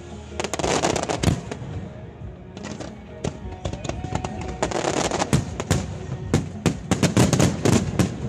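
Fireworks display: many bursting shells and crackling reports, bunched in dense volleys about a second in, around five seconds in, and in a fast run from about six to eight seconds, with music playing underneath.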